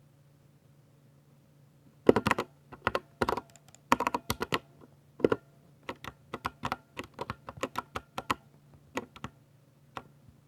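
Typing on a Ducky 60% mechanical keyboard with Cherry MX Silver linear switches: after about two seconds of quiet, a run of quick keystroke clacks in irregular bursts and short pauses, the last stroke about half a second before the end.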